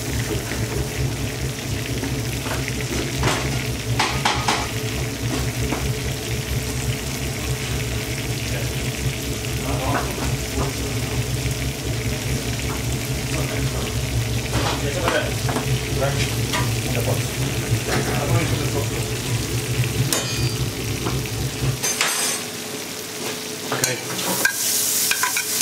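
Sliced onions, mushrooms and leek sizzling in melted butter in a pot as they are stirred, sweating for a fish stock. Under it runs a low kitchen hum that stops suddenly about 22 seconds in, with scattered clicks and knocks.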